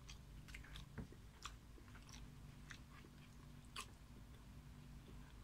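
Faint eating sounds: people chewing takoyaki, with scattered small clicks of mouths and chopsticks, the sharpest about a second in and near four seconds. A faint steady low hum runs underneath.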